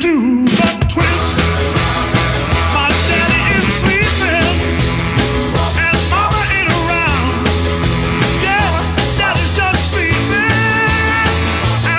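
Upbeat rock-style music with a steady beat and a bass line, with a singing voice over it.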